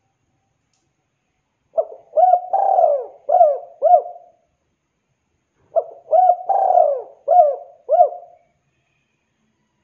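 Spotted dove (tekukur) cooing: two phrases of about six coos each, a couple of seconds apart.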